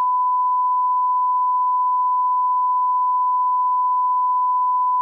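Broadcast line-up test tone: a single steady 1 kHz sine tone of the kind that accompanies colour bars at the head of a programme tape.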